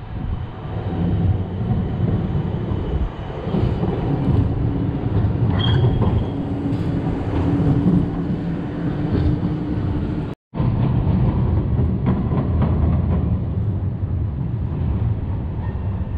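Low, steady rumble of a passing vehicle in city traffic, with a held hum for several seconds in the middle. The sound cuts out for an instant about ten seconds in.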